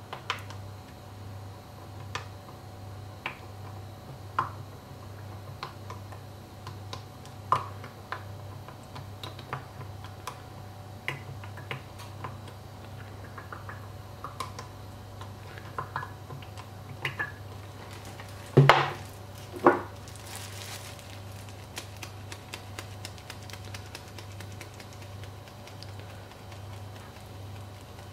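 Small clicks and taps of an oil bottle and a seasoning container being handled over a ceramic baking dish, with two loud knocks a second apart a little past the middle. A brief rustle of seasoning being applied follows, with a steady low hum underneath.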